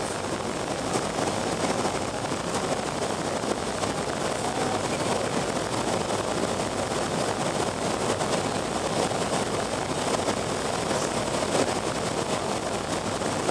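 Steady cabin noise of a BAe Avro RJ85 airliner on approach, heard from a window seat over the wing: an even rush of airflow and the drone of its four Honeywell LF507 turbofans.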